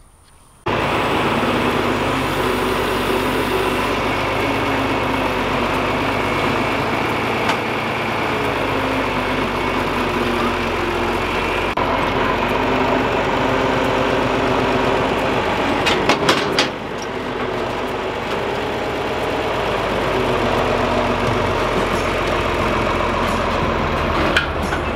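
Diesel engine of a John Deere farm tractor running steadily. It comes in abruptly about half a second in, and a few sharp knocks about two-thirds of the way through are followed by a slightly quieter stretch.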